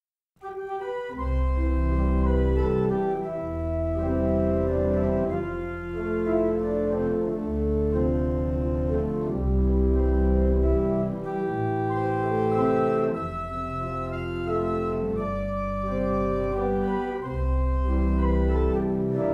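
Organ music, starting about half a second in: slow held chords over a deep bass line.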